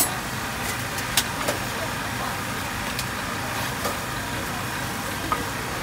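Metal spatulas clicking against a hot iron griddle as okonomiyaki is worked, a few sharp clicks with the loudest about a second in, over a steady background hum.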